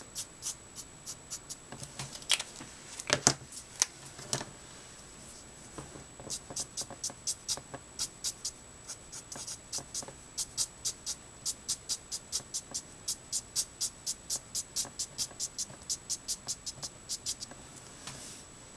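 Letraset Promarker felt tip flicked across paper in quick, even strokes, about three to four a second, laying colour in short hair-like lines. A few louder knocks come between about two and four seconds in.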